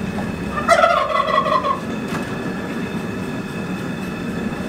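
A turkey gobbles once, about a second in, over a steady rumbling hiss.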